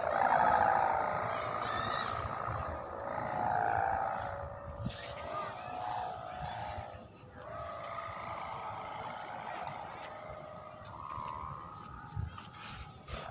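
Hummer (sendaren) on a large koang kite droning in the wind: a wavering mid-pitched hum that swells and fades several times.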